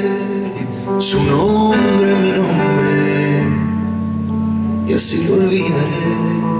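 Live piano ballad: a male voice sings long, sliding phrases over sustained piano chords.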